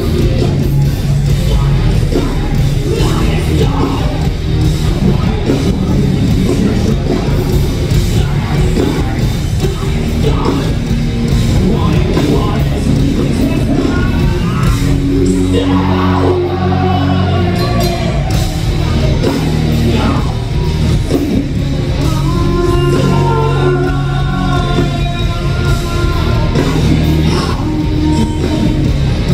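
Live hard rock band playing loud: distorted electric guitars, bass and drums, with a male lead vocal, heard from the crowd in a large hall. The lowest notes drop out briefly a little past halfway, then the full band and singing come back.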